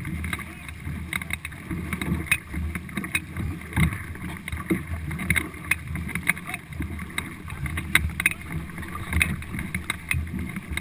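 Four-person stock racing canoe under way: paddle strokes splashing in a steady rhythm, a little over one a second, over water rushing along the hull and wind on the microphone.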